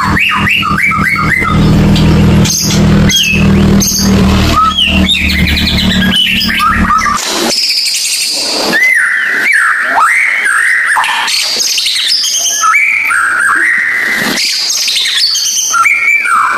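White-rumped shama (murai batu) singing a rich run of loud whistled phrases with notes gliding up and down, as played to lure a quiet bird into song. A steady low hum lies under the song and cuts off about seven seconds in.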